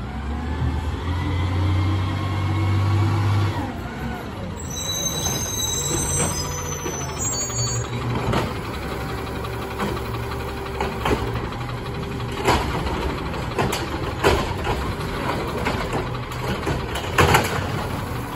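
Peterbilt 520 automated side-loader garbage truck running as it pulls up, with a brief high squeal of the brakes as it stops about five seconds in. Then the hydraulic side arm lifts and tips a recycling cart, with knocks and clatter of the cart and recycling falling into the hopper over the engine.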